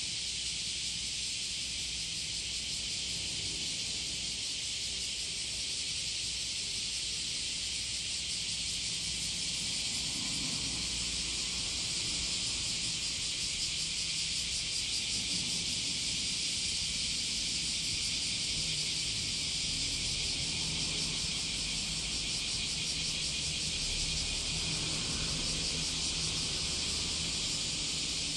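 Steady high-pitched outdoor hiss, even throughout, with a faint low hum that comes and goes beneath it.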